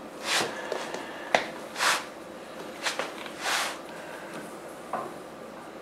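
Hands rolling and pressing a long log of soft, floured knish dough on a stone countertop: three soft swishes of skin on dough and counter about a second and a half apart, with a few light taps between them.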